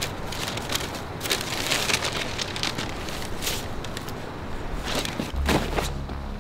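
A brown paper bag crinkling and banknotes rustling as cash is counted out of it, in irregular bursts. A low steady drone comes in about five seconds in.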